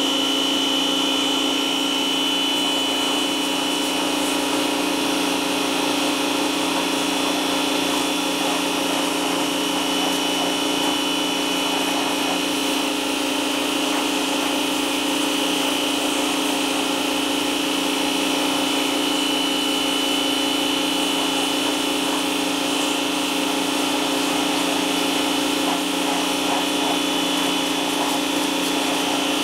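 Snap-On 1650 PSI electric pressure washer running steadily under load, a constant motor-and-pump hum with a hiss over it, never letting up.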